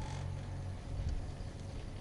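Steady low rumble of wind and the running lift heard from a moving 1986 Anzen Sakudo pair chairlift mid-ride.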